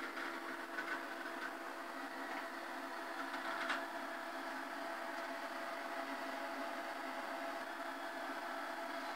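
Vendex Headstart III PC running: a steady hum and whine from its fan and 30 MB hard drive. Drive seek clicks chatter during the first few seconds as software loads, with one louder click about four seconds in, after which the hum continues evenly.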